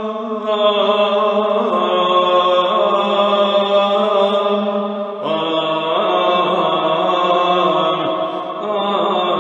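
Byzantine chant in the first mode: a voice sings a slow, melismatic line of a Communion hymn over a held drone note (ison), which steps down to a lower pitch about five seconds in.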